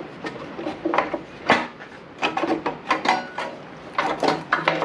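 The sheet-metal blower housing of a Briggs & Stratton mower engine being worked loose by hand: irregular clattering, scraping and knocking, with a sharp knock about one and a half seconds in. The cover is snagged at one point.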